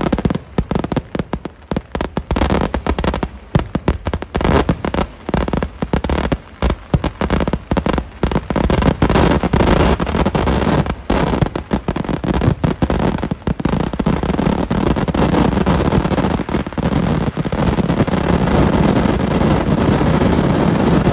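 Massed fireworks barrage fired from the ground: rapid volleys of loud bangs that, about two-thirds of the way through, merge into one continuous, louder rumble of explosions.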